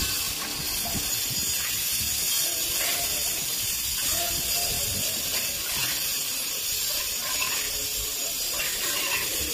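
Hand-held hopper gun spraying cement plaster mortar onto a wall with compressed air: a steady hiss that runs without a break.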